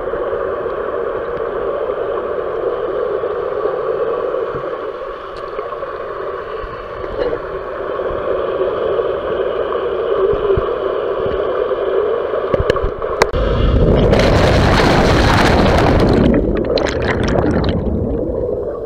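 Pool water heard with the microphone under the surface: a steady muffled hum. About two-thirds of the way through comes a loud rush of water and bubbles lasting about three seconds, then broken bursts of splashing.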